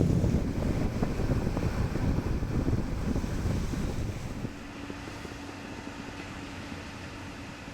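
Wind buffeting the microphone in low rumbling gusts that ease off, dropping sharply about halfway through, leaving a faint steady hum under a quieter rush.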